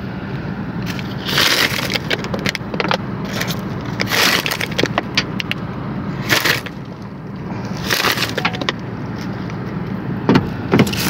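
Rustling and crackling with many sharp clicks as an ostrich's feathers brush against the phone at the car window, in several louder bursts.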